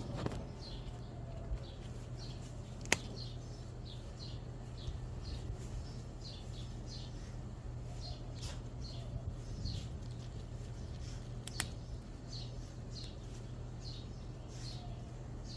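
Small birds chirping over and over in short, falling chirps, two or three a second, over a steady low hum, with two sharp clicks along the way.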